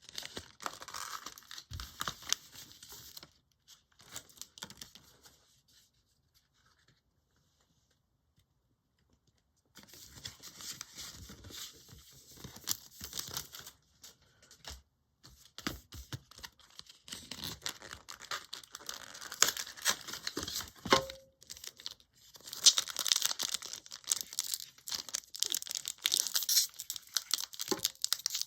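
A foil Pokémon card booster pack being torn open and crinkled, in short crackling bursts. The sound stops after about three seconds, leaving a gap of near silence of about six seconds, then resumes and grows louder towards the end.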